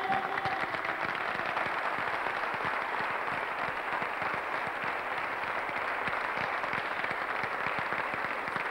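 Studio audience applauding, a steady dense clapping as the song ends.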